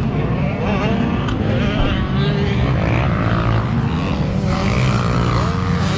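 Dirt bike engines running at the motocross track: a steady drone with the revs rising and falling.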